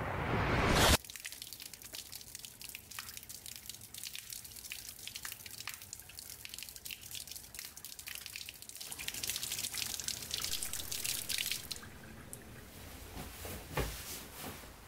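A loud rising swell that cuts off abruptly about a second in. Then water splashing and dripping from a wall tap as hands are rinsed under it, building to a steady run of tap water for a few seconds. A few soft knocks near the end.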